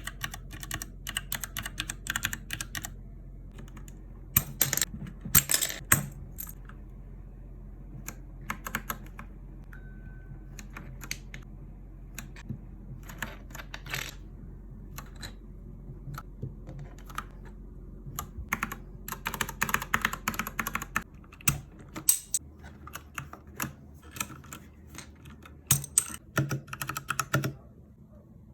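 Typing on a Royal Kludge RK61 mechanical keyboard with red linear switches: quick irregular runs of key clacks with short pauses between them, louder bursts of keystrokes at times.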